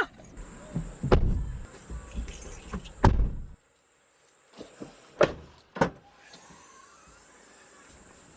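Car doors and other knocks: four sharp thuds spread over the clip, with a sudden cut to dead silence about three and a half seconds in, then only faint hiss.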